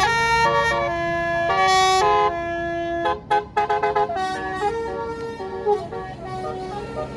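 A bus's basuri musical air horn playing a tune, note by note: several held notes first, then a run of short, quick notes about three seconds in.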